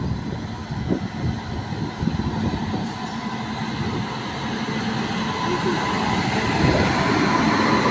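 Train running on the tracks with a dense rumble and clatter, growing louder toward the end.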